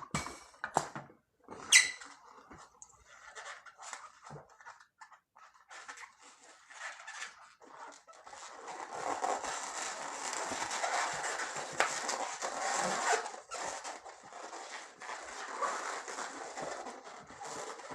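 Latex modelling balloons rubbing and squeaking as they are handled and twisted, with scattered short squeaks and clicks, then a longer stretch of steady rubbing noise in the middle.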